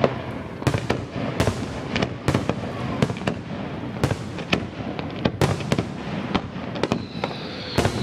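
Aerial firework shells bursting in quick succession: sharp, echoing bangs several a second, with crackling between them and a faint high whistle near the end.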